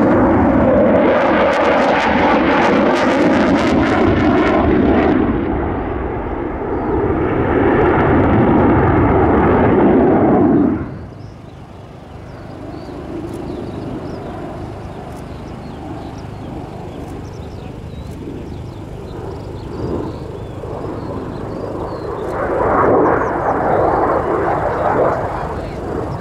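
F/A-18C Hornet's twin General Electric F404 turbofan engines, loud as the fighter passes close overhead, then cutting off suddenly about eleven seconds in to a fainter distant jet sound, which grows louder again near the end as it comes back around.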